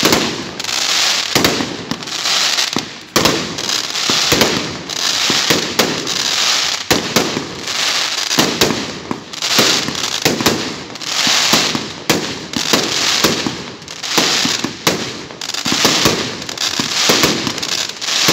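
Ruggieri professional fireworks display: aerial shells bursting one after another, a sharp bang about every second over a continuous hiss of burning stars.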